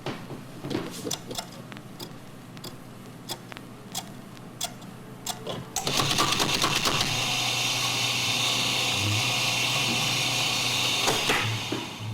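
Scattered sharp clicks and ticks, then a small machine starts suddenly and runs steadily with a whirring noise for about five seconds before stopping.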